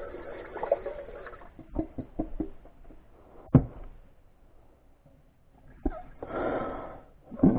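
A utensil knocking and scraping against a pan of ground beef sauce: a few quick knocks, one sharp knock, a pause, then a short stretch of scraping or stirring.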